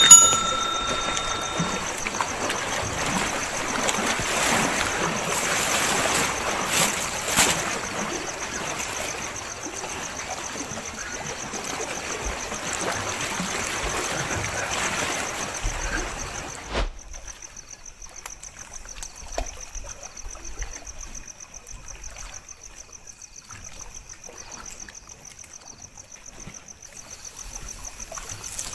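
Lake water washing and trickling against shore rocks, with crickets chirping steadily. The water noise cuts off abruptly about two-thirds of the way through, leaving mostly the crickets.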